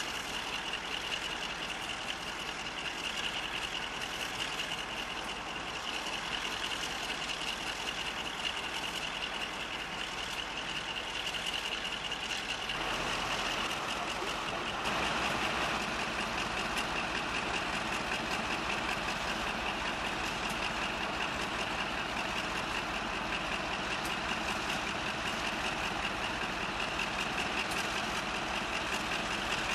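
Hymek D7076 diesel-hydraulic locomotive's Maybach V16 diesel engine running steadily at low power as the locomotive moves slowly and stands at the platform, with a steady high whine over the engine note. The sound changes abruptly about 13 and 15 seconds in and is a little louder afterwards.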